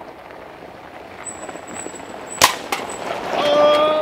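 ATV driving past on a gravel road, its tyres crunching on the gravel. About two and a half seconds in there is one sharp crack, then a smaller one, and near the end a short steady tone sounds and fades.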